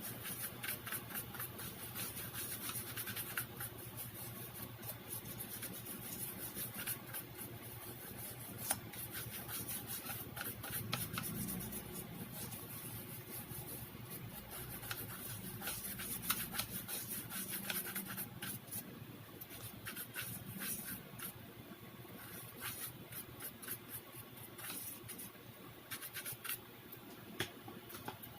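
Quick, irregular scratching and rubbing strokes, like hand work scraping or brushing a surface, over a faint steady hum.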